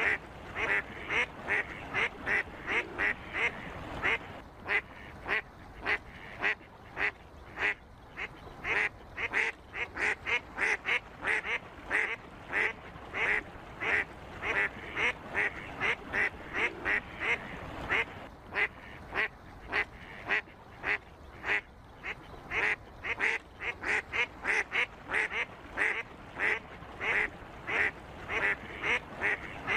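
Ducks calling: an unbroken run of short, repeated calls, about two to three a second.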